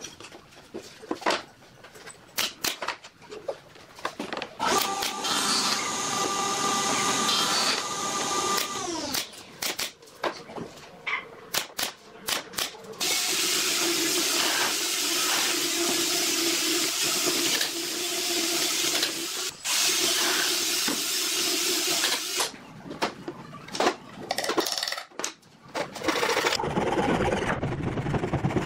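Woodworking in pine: knocks and clicks of boards being handled, then a cordless drill running for a few seconds and winding down. Later the drill bores into the pine for about nine seconds. Near the end, a hand saw cuts a wooden dowel with quick back-and-forth strokes.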